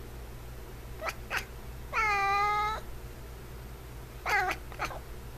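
F6 Savannah cat calling: two short calls about a second in, a longer meow of nearly a second around two seconds in, then three more short calls near the end.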